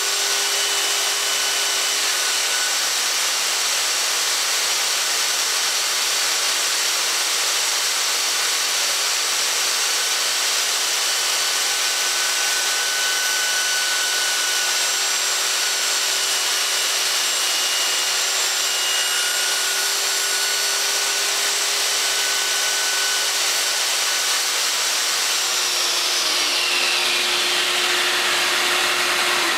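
DeWalt benchtop table saw running at speed with a steady motor whine while a crosscut sled feeds Honduran mahogany through the blade. Near the end the whine begins to fall in pitch as the saw winds down.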